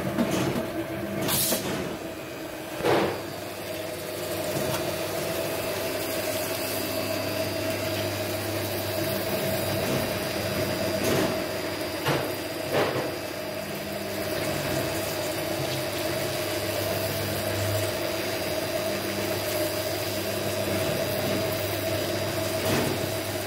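Steady hum of workshop machinery, with a few short sharp knocks now and then.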